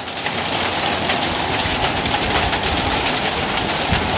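Heavy hail and rain falling fast and loud, a dense steady patter of countless small hits on the ground and surrounding surfaces.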